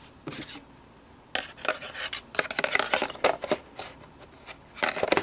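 Handling noises of hard objects: irregular scraping and rubbing with light clicks and clinks, in a busy stretch through the middle and a short burst near the end.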